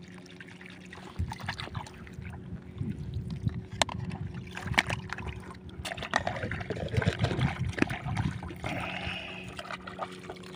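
Water sloshing and splashing as a plastic basket of freshly dug cockles is swirled and rinsed in shallow seawater, with a few sharp clicks from the shells and plastic being handled.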